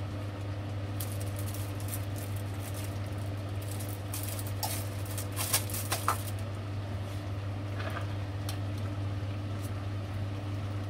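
Cauliflower, corn and coconut milk simmering in a pot, giving off scattered small crackles and pops, most of them around the middle, over a steady low hum.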